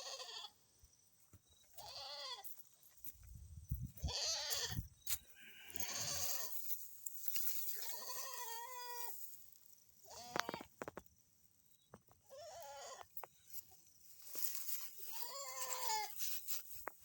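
A goat bleating over and over, about eight quavering calls, each under a second long and roughly two seconds apart.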